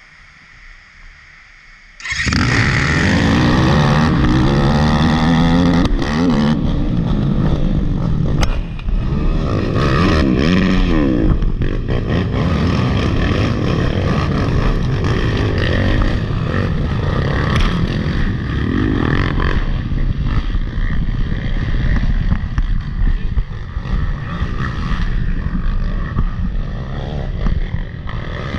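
Off-road dirt bike engine racing under hard throttle, its pitch rising and falling over and over as the rider shifts and rolls on and off the gas. It starts abruptly and loud about two seconds in, after a quieter opening.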